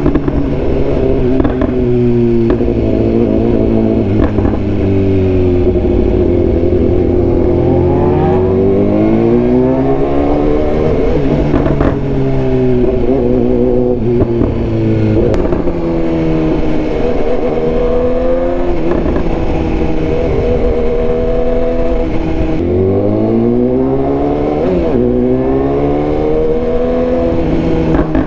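BMW S1000R motorcycle's inline-four engine pulling hard under acceleration. Its pitch climbs with each pull and drops back again and again as the bike is ridden through the gears.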